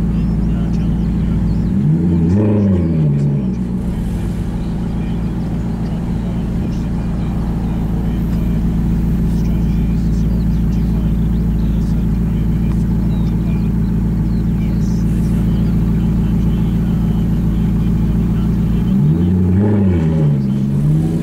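Alfa Romeo 8C Spider's 4.7-litre V8 idling steadily, blipped twice: once about two seconds in and again near the end, the pitch rising and falling each time.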